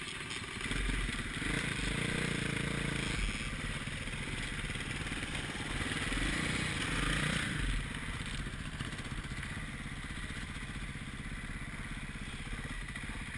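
KTM 450 XC-F single-cylinder four-stroke dirt bike engine running at low revs as the bike is ridden slowly, with two brief swells of throttle, about a second in and again around six seconds in.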